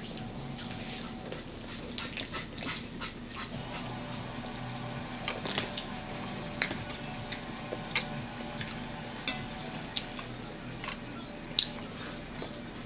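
Chewing on crisp celery: scattered crunches and sharp mouth clicks over a low steady hum.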